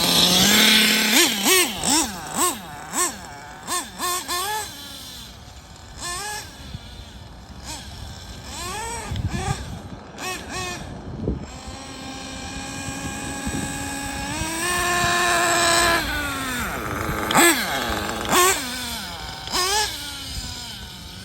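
Kyosho Inferno NEO ST 3.0's nitro engine revving up and down in quick bursts as the RC car is driven, with a steadier high whine for a few seconds past the middle.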